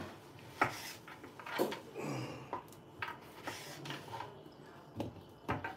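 Kitchen knife knocking on a wooden cutting board while slicing a tomato: about five sharp knocks at uneven intervals.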